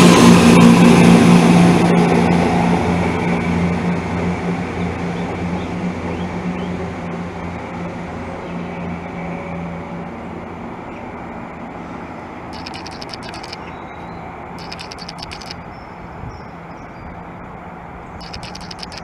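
Class 170 Turbostar diesel multiple unit pulling away, its underfloor diesel engines giving a steady low drone. The drone fades over about ten seconds as the train recedes into the distance.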